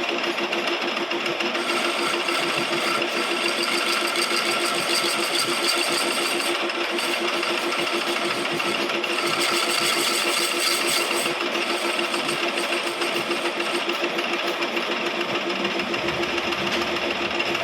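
Lathe running steadily with a fast pulsing hum while turning a chess pawn; a higher whine comes in about two seconds in, drops out, and returns briefly near the middle as the tool cuts.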